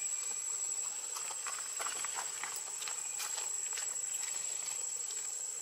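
Dry leaf litter crackling and rustling in short, irregular crackles as monkeys move on the forest floor, over a steady high-pitched whine.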